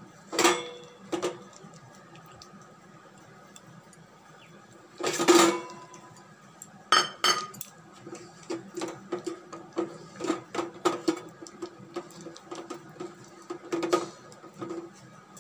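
Hand mixing palm fruit pulp and semolina in a stainless steel bowl: the bowl knocks and rings with a few sharp clanks, the loudest about five seconds in, then a run of lighter, fairly regular knocks from about eight seconds on as the mixing goes on.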